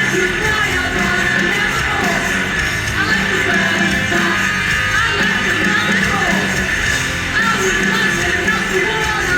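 Punk rock band playing live, loud and steady, with electric guitar over bass and drums.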